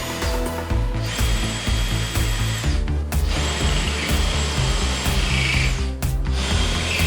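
Power drill running in three bursts of about two seconds each, working into the car's sheet-metal quarter panel to cut the damaged section away, over background music with a steady beat.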